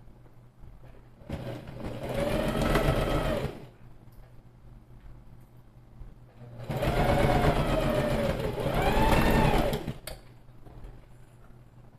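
Electric sewing machine stitching in two runs, one of about two seconds and a longer one of about three seconds, its motor whine rising and falling in pitch as it speeds up and slows down.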